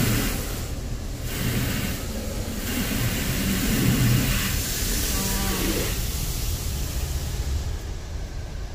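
Automatic car wash heard from inside the car: water spray and a rotating wash brush sweeping over the windscreen and body make a dense hiss with repeated low rumbles. A brief moaning squeak comes about five seconds in, and the hiss of the spray thins out near the end.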